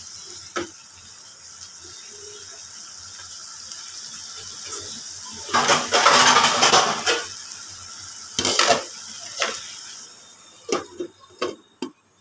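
Chicken pieces sizzling in oil in a non-stick kadhai while a silicone spatula stirs through them, loudest in a scraping stretch about six seconds in, with a few shorter strokes after. Near the end a glass lid goes on the pan with a few clinks, and the sizzle becomes muffled.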